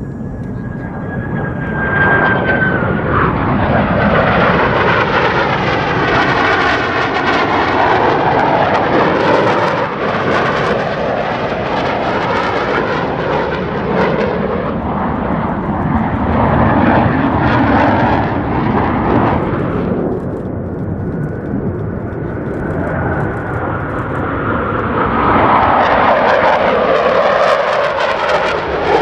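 Blue Angels F/A-18 Super Hornet jets flying past with a loud, steady jet roar. The roar swells about two seconds in, eases around twenty seconds, and builds again near the end as another pass comes in.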